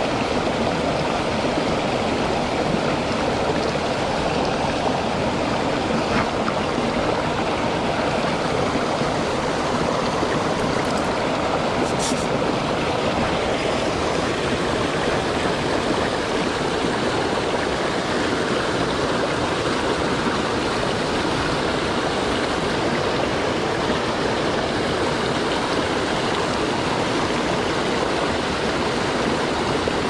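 Mountain stream rushing over rocks in shallow rapids, with a small waterfall, a steady even rush of water.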